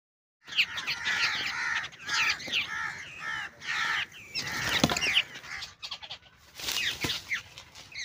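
A flock of babblers chattering: a dense run of harsh, squeaky calls that starts about half a second in, thins out around six seconds and picks up again near the end.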